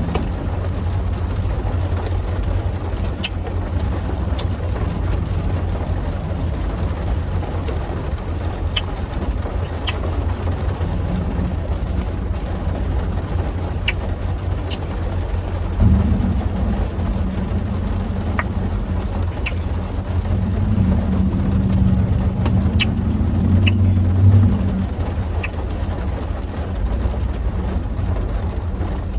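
Steady low rumble of a car idling, heard from inside the cabin, swelling for several seconds past the middle. Scattered faint clicks sit on top.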